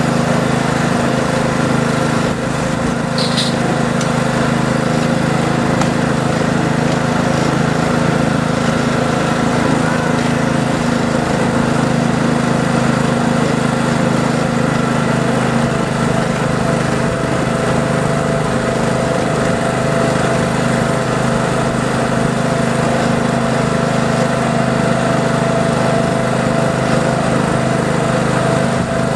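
Ride-on miniature live-steam train running along the track, heard from a car of the train: a steady, even running noise with a constant hum, and a brief higher squeak about three seconds in.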